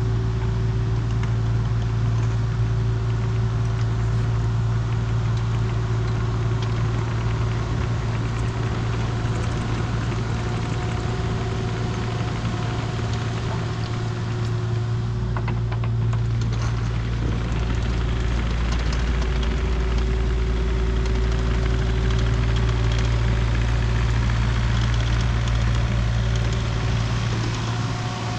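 Diesel engine of a compact earthmoving machine running steadily at a constant speed.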